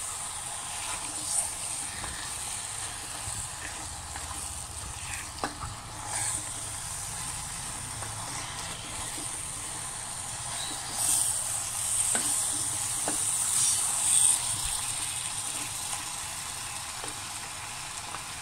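Chicken pieces in masala sizzling in a pressure cooker on low heat with no water added, stirred with a spatula that scrapes and knocks against the pot now and then. The sizzle swells for a few seconds a little past the middle.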